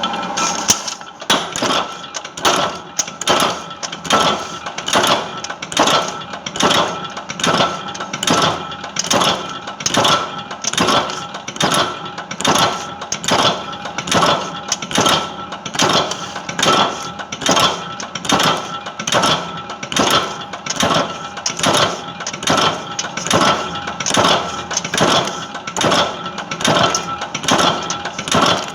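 Chain-making machine running, a metallic clatter repeating in a steady cycle a little faster than once a second, with a constant hum beneath.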